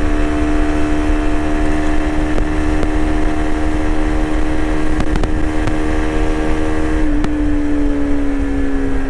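TVS Apache RTX 300's single-cylinder engine running at steady highway cruising revs, over a low rumble. About seven seconds in, the engine note begins to fall slowly as the revs drop.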